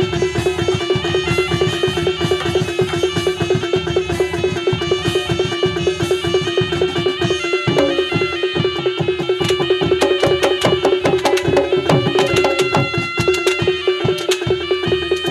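Live Javanese reog ensemble music: a fast, dense rhythm of drums and struck percussion under a steady held tone, with more high struck notes in the second half.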